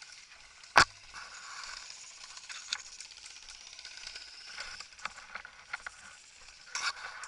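One sharp, loud crack about a second in, then scattered faint ticks over a steady rustling hiss.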